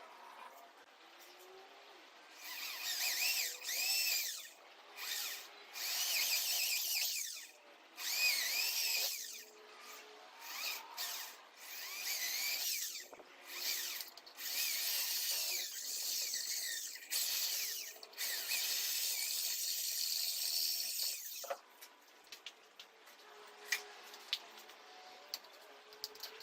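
Electric drill run in about a dozen short bursts, its high whine rising and falling in pitch as the trigger is squeezed and let go, then a few faint clicks near the end.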